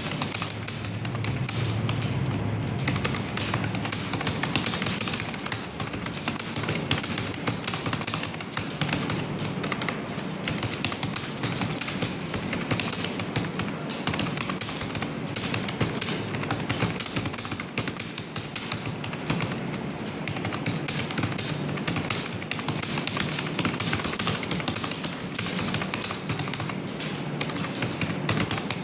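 Fast, continuous typing on a computer keyboard: a dense, uneven run of key clicks.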